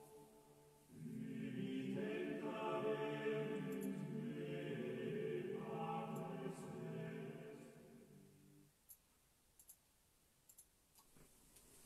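A choir singing slow, sustained chords that change every few seconds, stopping about nine seconds in. A few faint clicks follow.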